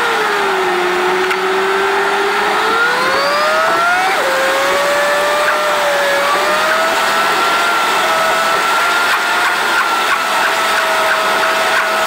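Peugeot 307 1.6 HDi diesel heard from inside the cabin while driving and pulling a trailer: steady engine and road noise with a whine that dips, climbs, drops suddenly about four seconds in, then rises slowly and holds steady.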